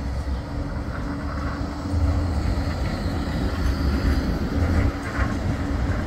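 Bombardier Flexity 2 tram running past close by on street track: a steady low rumble with a faint hum over it.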